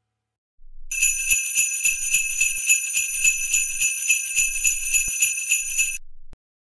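Jingle bells shaken in a steady rhythm of about four shakes a second. They start about a second in and cut off suddenly near the end.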